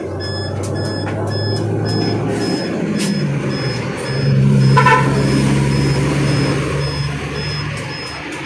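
A motor vehicle engine running steadily off to the side, rising in pitch and getting louder about halfway through, then easing off. A high-pitched beep repeats at a steady quick pace throughout.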